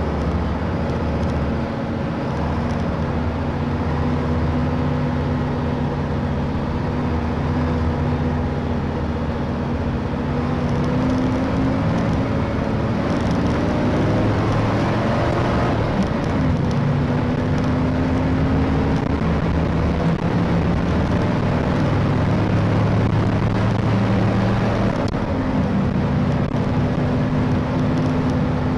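A vehicle engine running with steady road noise. The engine's pitch rises and changes a few times, about halfway through and again near the end.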